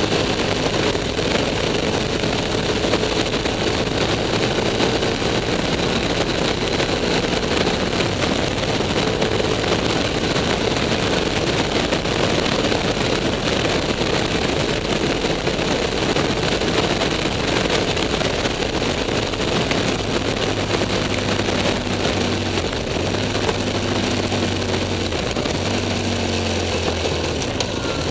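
BMW F 800 S parallel-twin engine running at a steady road speed, heard under heavy wind rush over the microphone. In the last several seconds the engine note drops lower.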